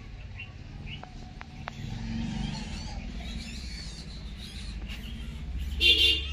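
Outdoor ambience: a steady low rumble with scattered faint chirps, and a short, loud, harsh call near the end.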